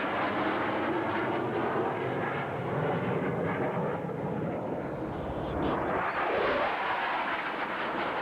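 Airplane engine noise from an aircraft flying at an airshow. The pitch shifts as it passes, and it swells about six seconds in.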